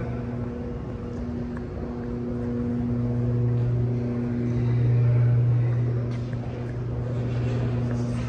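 Steady low machinery hum with a few higher overtones, swelling about halfway through and easing again near the end.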